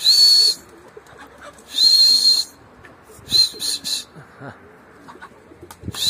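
Four loud, high whistle blasts, each about half a second long and holding one steady pitch, with faint pigeon cooing underneath.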